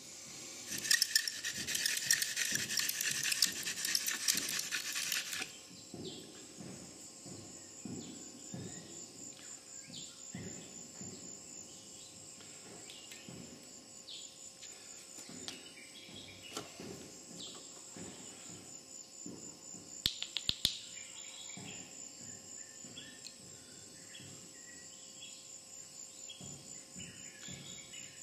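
Insects trilling steadily in a high register, with a louder buzzing chorus for the first five seconds or so. Two sharp clicks sound about twenty seconds in.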